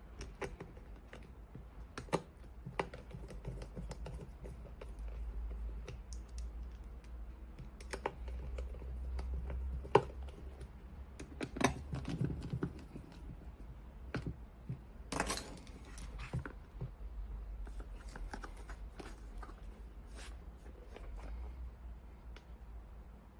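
Scattered clicks, taps and knocks of hands handling a plastic scan-tool tablet case and its strap, pressing parts into place, with a brief louder scuffing noise partway through. A faint low hum runs underneath.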